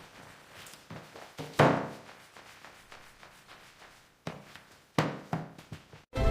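A series of separate thuds and knocks, the loudest about one and a half seconds in and a cluster of three more near the end.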